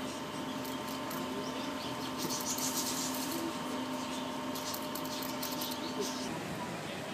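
Guinea pig chewing at its feeder: quick, crisp crunching clicks in bursts, over a steady hum that stops about six seconds in.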